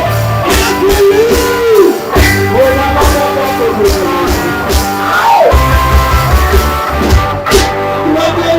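Ska band playing live, with a singer over electric guitar, bass and drums.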